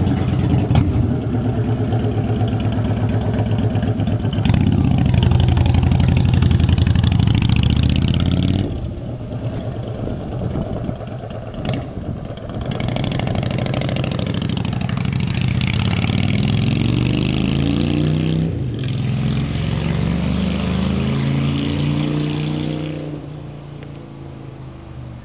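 Honda Shadow VT750 V-twin running through Vance & Hines Short Shots exhaust with quiet baffles fitted, still loud. It is revved and pulls away. Later it accelerates again with its pitch rising, breaks for a gear change, then rises again and fades out near the end.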